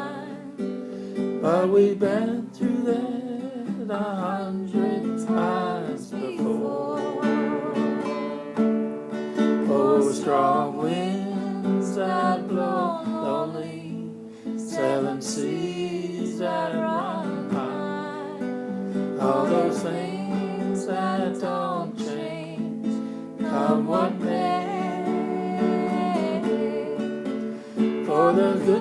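Acoustic guitar strumming chords, with a voice singing in phrases over it: a live folk-song performance.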